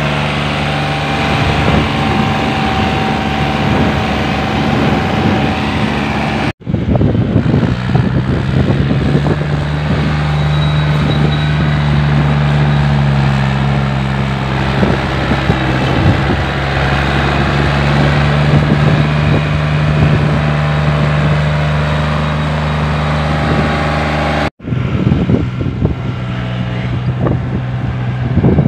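Diesel farm tractor engine running hard under load as it hauls a fully loaded dual-tyre trolley through deep sand. The engine note is steady and wavers slightly in pitch, and it breaks off for an instant twice.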